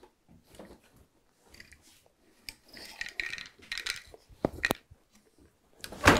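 Wooden hand loom at work: soft rustling and a couple of light clicks as the warp threads are picked by hand for the pattern, then near the end one loud wooden knock as the beater is pulled in to pack the weft.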